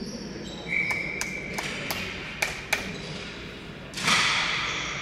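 Ball hockey play in an arena: a run of about six sharp clacks of sticks and ball on the hard court floor, over a steady high tone, then a louder hit with a ringing, echoing tail about four seconds in.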